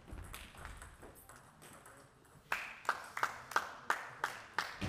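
Table tennis ball being bounced repeatedly before a serve: a run of sharp, evenly spaced pings, about three a second, starting about halfway in. Before that, only a few soft scattered knocks.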